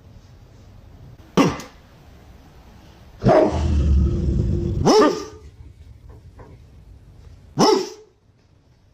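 Dog barking: a short sharp bark about a second and a half in, a longer growl ending in a bark around the middle, and another short bark near the end.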